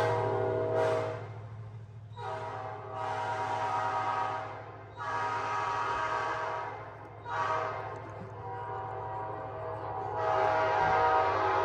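New-cast Nathan P5 five-chime locomotive air horn blown in a string of blasts of varying length, its chord swelling and fading between them. A steady low hum runs underneath.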